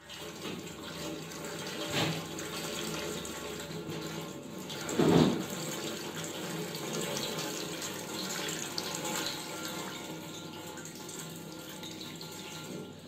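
Water pouring from a tilted steel bowl into a sink, a steady splashing pour with a louder surge about five seconds in: the clear water is being decanted off jowar flour that has settled to the bottom after soaking.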